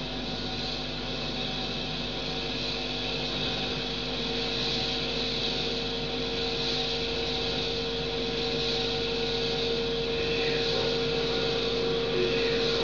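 Experimental noise music: a steady amplified electronic drone from a floor rig of effects pedals, with held tones under a hiss, slowly growing louder.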